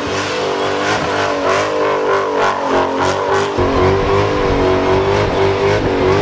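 Dodge Charger SRT's V8 held at high revs with the rear tyres spinning in a burnout, the engine note wavering up and down as the throttle is worked.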